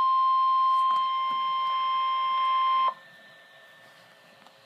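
NOAA Weather Radio 1050 Hz warning alarm tone: one steady, loud beep that cuts off suddenly about three seconds in, leaving faint radio hiss. The tone is the Emergency Alert System attention signal that comes right before a spoken warning is read.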